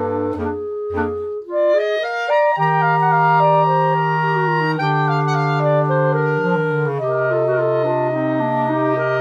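Clarinet quartet of three soprano clarinets and a bass clarinet playing: two short detached chords near the start, then a quick rising run that settles into held chords over a sustained low bass clarinet line, the harmony shifting every second or two.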